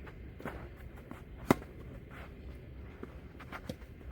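Tennis rally: sharp knocks of a tennis ball struck by rackets and bouncing on the court, the loudest hit about a second and a half in, with fainter hits and bounces around it.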